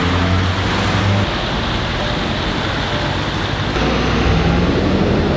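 Street traffic noise: a steady rush of passing cars with low engine hum, the hum changing pitch about two-thirds of the way through.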